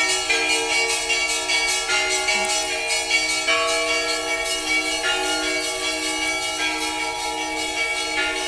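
Orthodox church bells ringing: several bells of different pitches struck over and over in quick succession, their tones ringing on and overlapping.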